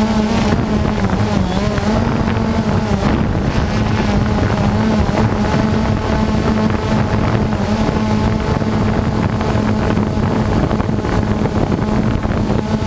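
Steady roar of a large waterfall, with a low droning tone under it that wavers in pitch for the first few seconds and then holds steady.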